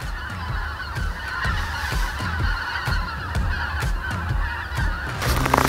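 A large flock of geese honking in flight: a dense chorus of many overlapping honks.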